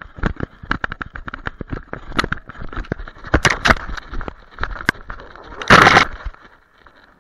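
Knocks and rattles of a camera strapped to a running, playing German Shepherd's harness, with brush and fur scraping across the housing. There is a louder rubbing rush about six seconds in.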